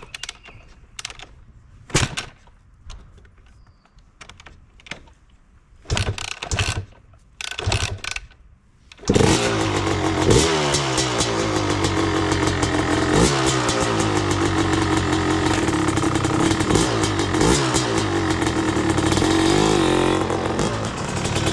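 Yamaha YZ250 two-stroke dirt bike being kicked over with a few short bursts, catching about nine seconds in. It then runs steadily and is revved up and down several times on its first start after fresh oil and a new clutch cable.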